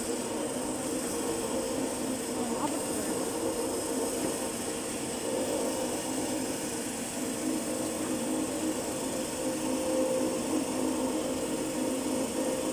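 Automatic toilet paper roll band saw cutting machine and its belt conveyor running, a steady machine drone with an even hum and hiss.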